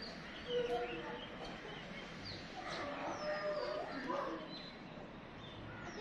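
Several birds chirping and calling, short whistled notes sliding up and down in pitch.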